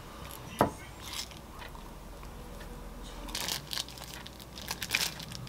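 A single sharp knock of a wooden spoon against the dish about half a second in, then, over the last two seconds, the crisp crackle of a plastic pouch being squeezed as mozzarella balls are pushed out of it.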